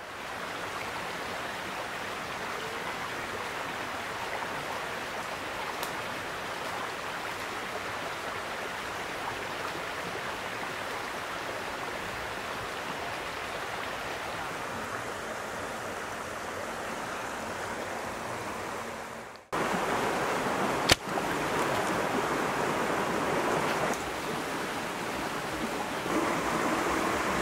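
Shallow stream running over rocks, a steady rush of water. About two-thirds of the way through it breaks off for an instant and comes back louder, and a single sharp click follows a moment later.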